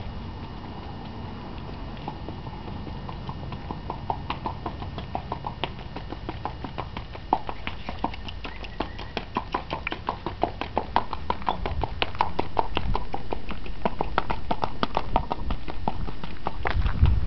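Hooves of a Tennessee Walking Horse striking the dirt arena as it is ridden at its smooth gait, an even run of hoofbeats several a second. A low rumble joins about two-thirds of the way through.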